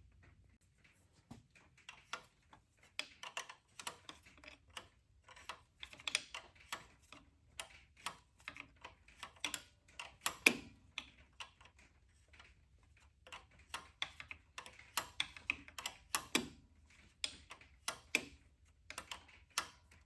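Hand wrench work on nuts: irregular runs of small metallic clicks and ticks, with a couple of sharper clacks, about ten and sixteen seconds in.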